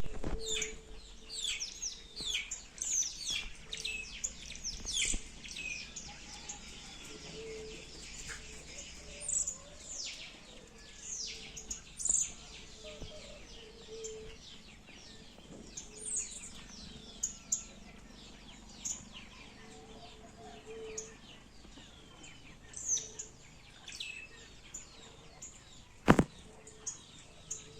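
Several small birds chirping with quick, high, downward-sweeping notes, dense for the first few seconds and then more scattered, with a short low note repeating now and then. A single sharp click about 26 seconds in is the loudest sound.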